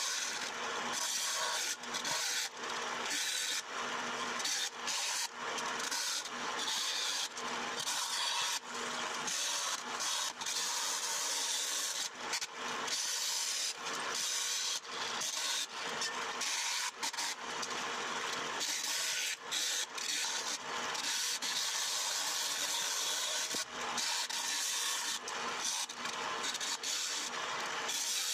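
Vertical bandsaw running, its blade cutting through thin sheet stock fed by hand: a steady rasping hiss that dips briefly and often as the feed pauses.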